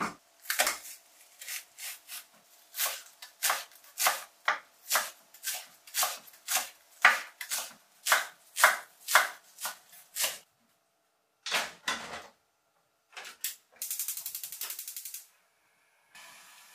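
Kitchen knife chopping a green onion on a wooden cutting board, about two strokes a second, stopping about ten seconds in. After a pause and a few knocks comes the rapid clicking of a gas stove's igniter, and near the end the burner is lit with a soft steady hiss.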